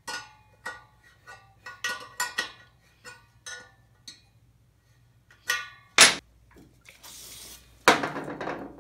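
Spoke wrench clinking against the spoke nipples and spokes of a motorcycle wheel, a quick string of metallic clicks with the spokes ringing briefly, then two louder metallic knocks about six and eight seconds in.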